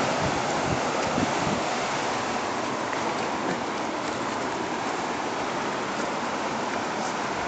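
Ocean surf breaking and washing in over a rocky shore: a steady rush of water.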